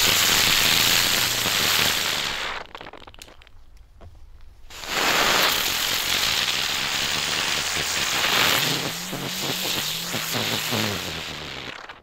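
Small ground-spinner fireworks hissing loudly as they spray sparks. The first burns out about two and a half seconds in, and after a short lull a second one hisses until near the end. They fizz in place on the uneven dirt rather than spinning.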